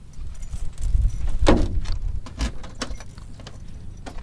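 Sharp knocks over a low rumble of wind and handling on the microphone, the loudest knock about a second and a half in. Small clicks follow near the end as a key is worked in the lock of the Cessna 172's baggage door.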